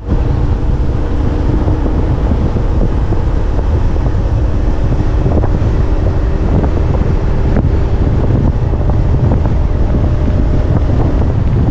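Wind buffeting the microphone of a motor scooter ridden at about 50 to 60 km/h: a steady, low rushing noise, with the scooter's engine faint underneath.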